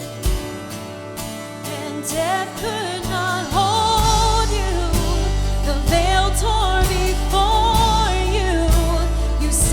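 Live worship band playing, with voices starting to sing about two seconds in; bass and drums join about four seconds in and the full band gets louder.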